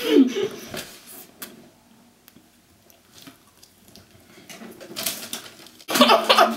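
A person with a mouthful of marshmallows gagging and retching, spitting them out: noisy heaving builds from about four and a half seconds in and turns into a sudden loud retch with voice in it about six seconds in. A muffled voice is heard in the first second.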